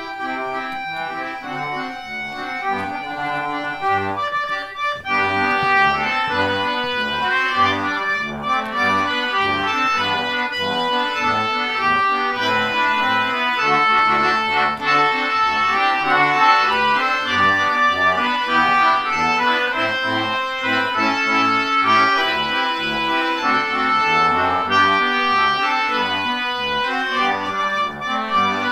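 A concertina band playing a march: many free-reed concertinas sounding sustained chords and melody together over a bass line moving in steady separate notes. It grows a little louder about five seconds in.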